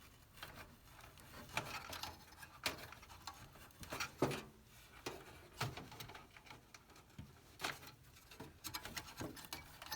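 Irregular small clicks and taps of fingers handling a CPU fan cable and its plastic connector, fitting a three-pin fan plug onto a four-pin motherboard header.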